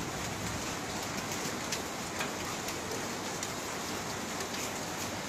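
Steady rain pattering on surfaces, with a few single drops ticking out close by.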